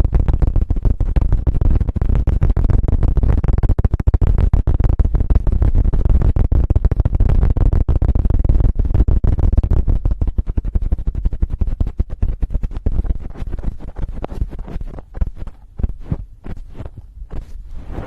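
Rapid 'helicopter' ASMR strokes: hands flapping and cupping fast over the microphone, a dense run of low thumps. They thin into slower separate strokes over the last few seconds and then stop.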